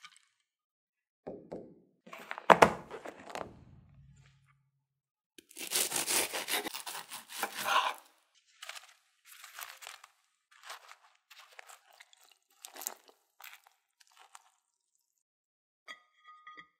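A knife crunching through flaky croissant crust on a wooden cutting board, one long crackly cut followed by a series of shorter crunches, after a single loud knock early on. Near the end, a brief ringing clink of a knife against a ceramic baking dish.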